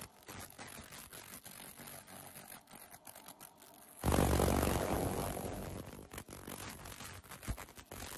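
Pulsed laser cleaning an aluminium engine cylinder head: a fast, dense crackling as the beam strips grime and oxide from the metal. About four seconds in, a loud rush of noise starts suddenly and fades over about two seconds.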